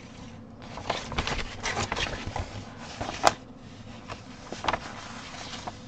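Paper chart pages being turned and handled: a run of short paper rustles, with one sharp click a little over three seconds in.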